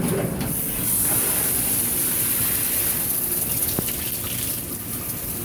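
Shower water running steadily and splashing onto a dirty vacuum cleaner air filter as it is wetted and rinsed, with one small click partway through.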